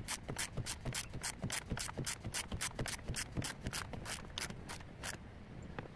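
Socket ratchet clicking steadily, about four or five clicks a second, as it turns the forcing screw of a pulley installer to press the pulley onto a power steering pump shaft. The clicking stops about five seconds in, with one more click near the end.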